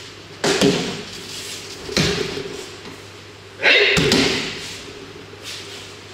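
Aikido partners being thrown onto tatami mats: loud slaps and thuds of breakfalls about half a second in, at two seconds and near four seconds, with a short shout at the last impact.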